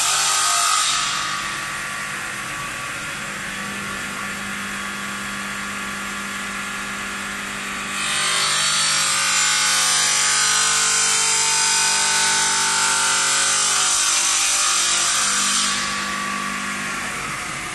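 CNC stone bridge saw cutting stone, with a steady motor hum under a loud, hissing grind from the blade. The grind eases about a second in, comes back at about eight seconds, and eases again near the end, as the cut loads and unloads the blade.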